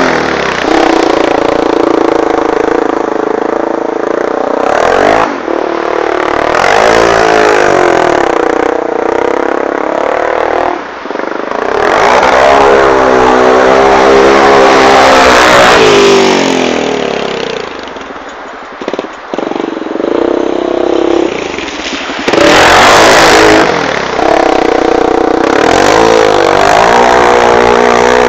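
Sport quad's single-cylinder four-stroke engine under hard riding, revving up and dropping back over and over as the rider accelerates, shifts and lets off. Its pitch falls back toward idle for a few seconds past the middle, with some clatter, then it revs hard again.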